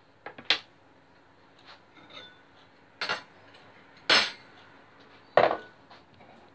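A kitchen knife and a plate knocking against a wooden chopping board and worktop: four sharp clinks and knocks spread over several seconds, the loudest about four and five and a half seconds in.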